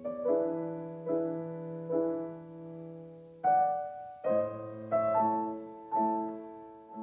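Slow background piano music: soft chords struck about once a second, each ringing out and fading.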